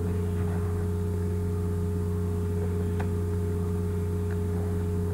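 Steady low hum in the recording background, with a couple of faint ticks about three and four seconds in.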